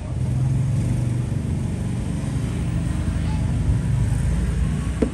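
Road traffic running past as a steady low rumble of engines. A short sharp sound comes just before the end.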